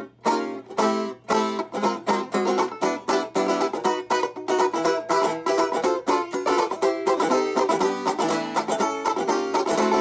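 Six-string banjo (banjitar) picked fast: a steady run of bright plucked notes, several a second, each ringing briefly.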